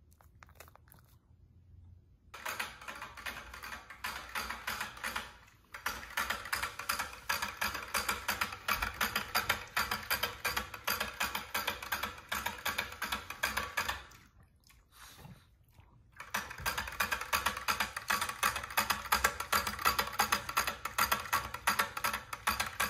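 Shih Tzu drinking from the metal lick spout of a bottle water dispenser, the spout clicking rapidly with each lick. The clicking starts a couple of seconds in and breaks off for about two seconds past the middle before going on.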